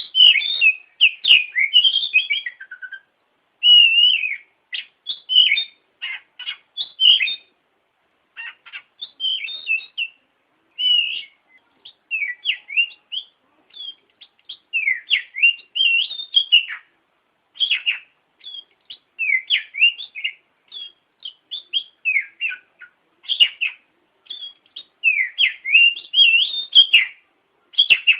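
Oriental magpie-robin singing: a varied song of short whistled phrases and quick chirps, in bursts with brief pauses between them.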